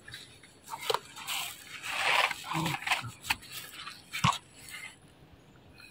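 Macaque biting and chewing fruit: a run of crunching and tearing sounds with sharp clicks over about four seconds.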